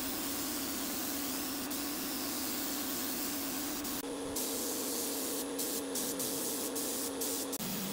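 Compressed-air gravity-feed spray gun hissing steadily as it sprays the wood, with a few short breaks in the hiss in the second half. A steady low hum runs underneath and drops in pitch near the end.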